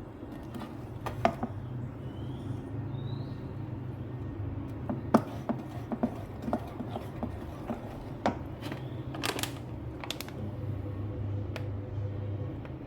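Irregular clicks and knocks of kitchen food preparation, utensils against a board or bowl, over a low steady hum.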